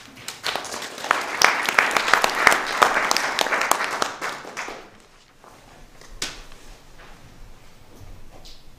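Audience applauding, swelling and then dying away about five seconds in.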